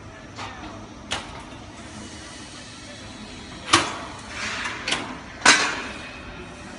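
Steel frame scaffold being put together: sharp metal clanks and rattles as a guardrail tube is fitted into the frame and the platform takes the worker's weight. A couple of light knocks come first, then three loud clanks close together, the last the loudest.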